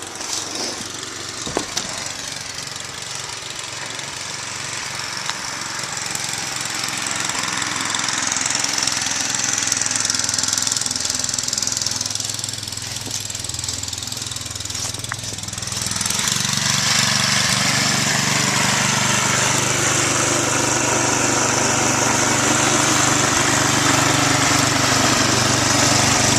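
Snowblower engine running steadily, growing louder and stepping up sharply about two-thirds of the way through, with a steady hiss over it.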